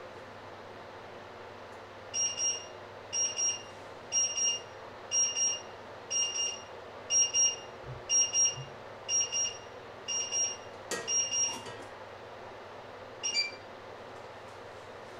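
Electronic timer alarm sounding double beeps about once a second, ten in all, which stop just after a sharp click. One more short beep follows a couple of seconds later.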